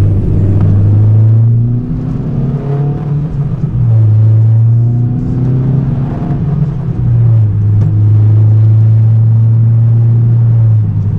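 2017 Honda Civic Type R's turbocharged 2.0-litre four-cylinder engine pulling hard, its pitch climbing, with two brief let-ups about two and six seconds in.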